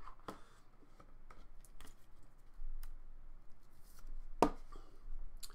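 Trading cards and rigid plastic card holders being handled, making light scattered clicks and rustles, with one sharp tap about four and a half seconds in.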